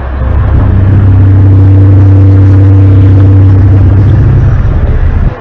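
A loud, low, steady droning hum with a few fainter higher tones above it. It swells in over the first second and breaks off briefly near the end. This is one of the unexplained 'strange sky sound' recordings, the trumpet-like drone heard from the sky.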